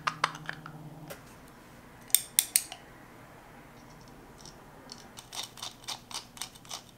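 Small metal clicks and taps from a vintage Bache Brown Spinster Mk.VI spinning reel and a screwdriver being handled during reassembly. There are a few sharp clicks at first, three loud ones about two seconds in, then a quicker run of lighter clicks near the end.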